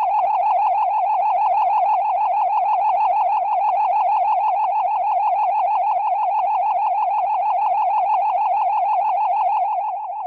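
Synthesized cartoon sound effect: a steady electronic tone warbling rapidly up and down in pitch, about eight wobbles a second, held for the whole stretch and dropping a little in level near the end.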